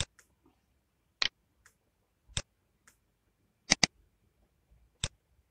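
Computer mouse clicks: a few sharp single clicks spaced about a second apart, with a quick double-click a little past the middle, and fainter clicks in between.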